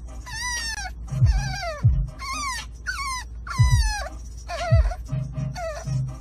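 An animal's high whining cries, about ten in quick succession, each falling in pitch, with music and a few low thumps underneath.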